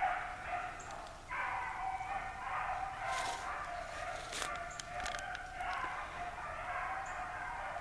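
Pack of hounds baying as they run a swamp rabbit's trail. Long drawn-out bawls follow one another with hardly a break.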